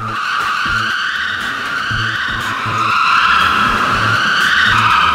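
Cartoon sound effect of a monster truck tire squealing in a wheelspin burnout: a steady high screech that grows louder about three seconds in and drops a little in pitch near the end, over a low, uneven pulsing.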